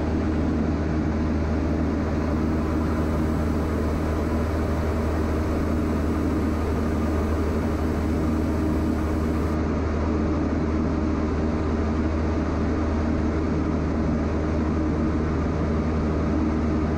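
Steady drone of a Diamond DA40 XLT's Lycoming IO-360 four-cylinder engine and propeller in flight, heard inside the cabin, with an even, unchanging power setting.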